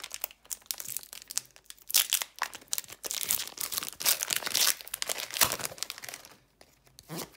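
Foil wrapper of a Pokémon TCG booster pack being torn open and crinkled by hand, a dense run of crackling that stops about six seconds in.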